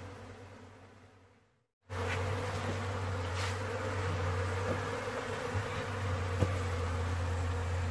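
Honeybees buzzing steadily around freshly cut honeycomb. About a second and a half in, the sound fades to a brief silence, then the steady buzz comes back in at once, with one small tap later on.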